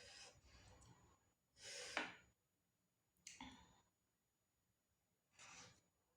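Close-miked eating sounds: a few short, separate bursts of crunching and breathing as crunchy fried sea mole crabs are chewed. The loudest burst comes about two seconds in.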